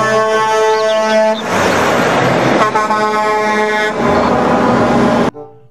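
Heavy truck air horn sounding in two long blasts over the steady noise of passing big rigs. The sound cuts off suddenly near the end.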